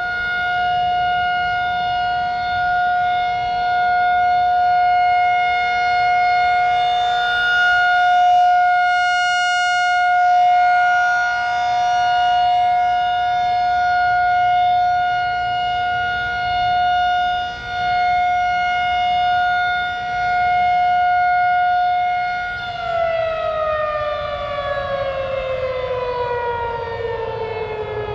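1999 Federal Signal 2001-SRN rotating outdoor warning siren sounding the steady alert tone, swelling and fading in loudness as it turns. About 23 seconds in it is switched off and its pitch winds steadily down.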